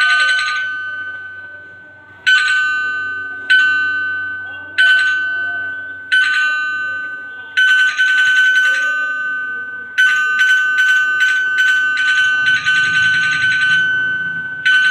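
A bell-like chime played through a phone's speaker, from a recording of sounds meant to attract dogs. It rings in single strikes every second and a half or so, each ringing out and fading. From about ten seconds in it turns into a fast run of rapid rings.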